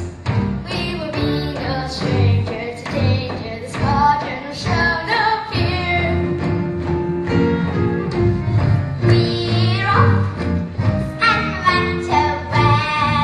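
Show-tune music with a steady beat and singing voices.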